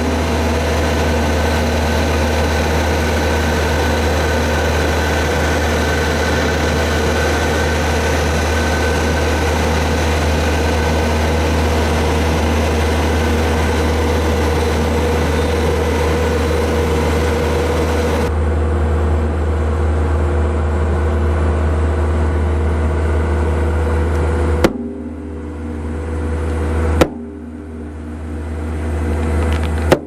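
JCB Vibromax road roller's diesel engine running with a steady low drone. About two-thirds of the way in, and twice more near the end, the sound cuts abruptly with a click; after the last two it drops away and then swells back up.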